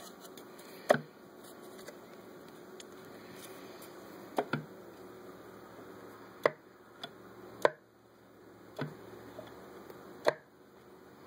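About seven sharp clicks and knocks at uneven intervals, the loudest about a second in, over a faint steady hum.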